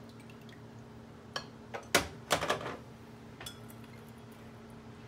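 A small silver teapot being set down among glass and china, with a few light clinks and clacks. The loudest knocks come about two seconds in, and a last small click rings briefly about a second later.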